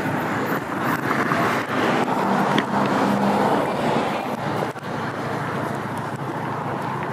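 Street traffic noise with a vehicle passing, loudest about two to four seconds in, with a low engine hum.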